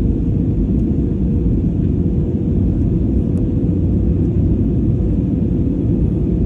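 Jet airliner cabin noise at a window seat over the wing in flight: a steady, loud rumble of engines and airflow, with a faint steady hum.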